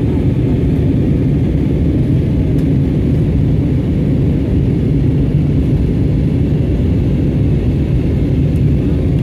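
Cabin noise inside a jet airliner in flight: a steady, even hum of the engines and rushing air, heaviest in the low range.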